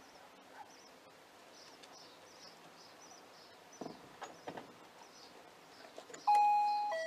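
Doorbell chime ringing a two-note ding-dong near the end, set off by a dog at the door's bell device; the first note is high and is followed by a lower one. Before it, birds chirp faintly and a few soft knocks sound about four seconds in.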